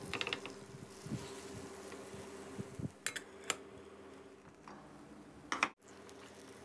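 A steady low buzzing hum under light kitchen noises: soft scraping and knocks as batter goes into a non-stick pan, a few sharp clicks about three seconds in, and a louder knock near the end.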